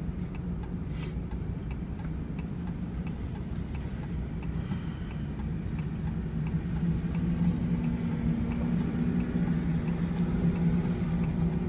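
Vehicle engine heard from inside the cab while driving, a steady drone that rises a little in pitch in the second half, with a light, regular ticking like a turn signal's indicator.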